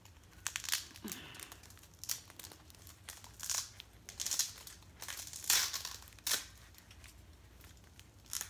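Paper and foil wrappings crinkling and rustling in short, irregular bursts as hands work tape around a toe; the loudest burst comes about five and a half seconds in.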